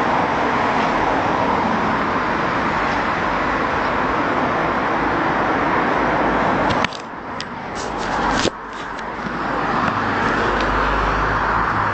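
Steady road and wind noise from a moving car with its window open. About seven seconds in it drops away suddenly as the phone is covered and handled, with rubbing and a few sharp clicks, then the road noise returns.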